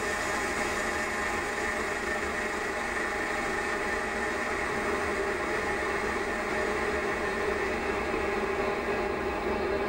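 Metal lathe running steadily while a tipped cutting tool faces the end of a cast iron bar, a steady whir, played back at four times speed.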